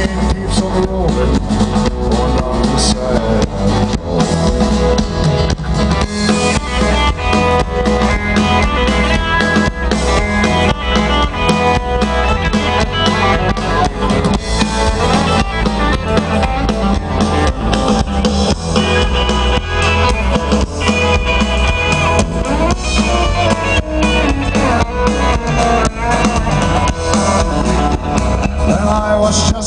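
Live country band playing loudly over a PA: a drum kit keeping a steady beat under strummed acoustic guitars and electric guitar, in a passage with no singing standing out.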